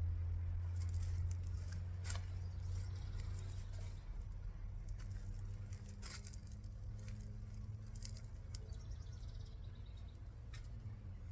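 Hands digging through loose garden soil, scattered soft rustles and clicks. A low hum, as from a distant vehicle engine, fades after about four seconds, and birds chirp faintly in the second half.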